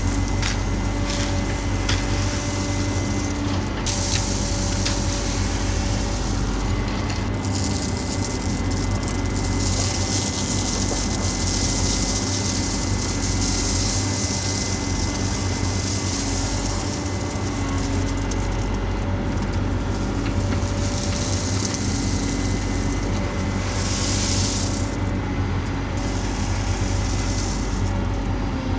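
Engine of a piece of heavy equipment running steadily, with several stretches of high hissing noise over it.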